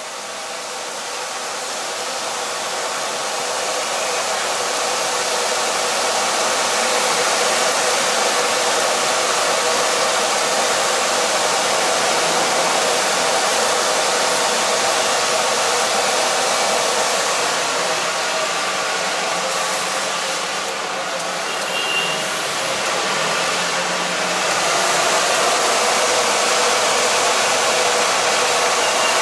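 Gas wok burner firing under the wok: a steady rushing noise that grows louder over the first six seconds or so, then holds, dipping slightly about twenty seconds in.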